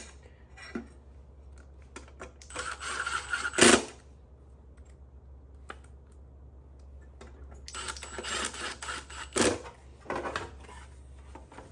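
Handling noises from work on the UPS and its new batteries: two stretches of scraping or rustling, each ending in a sharp click, with a few lighter clicks between.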